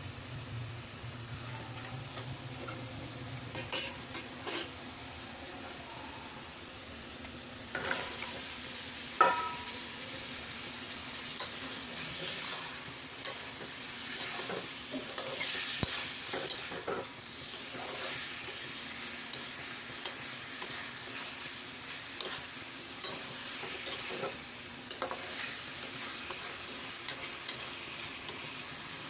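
Curry sizzling in a hot pan while a spoon stirs and scrapes against the metal, with frequent scrapes and clinks from about eight seconds in and a few sharp taps before that.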